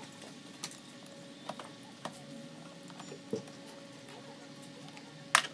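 Scattered light clicks and taps of hand tools on metal during engine-bay work, with one sharp, louder click near the end, over a faint steady hum.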